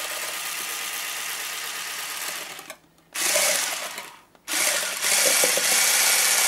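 Braun 600-watt hand blender with a whisk attachment running in a glass of milkshake, whisking it. Its motor stops and restarts twice, a few seconds in, and runs louder after each restart.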